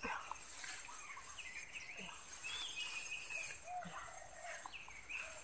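Outdoor ambience: a steady high-pitched insect drone, crickets or cicadas, with scattered short bird chirps over it.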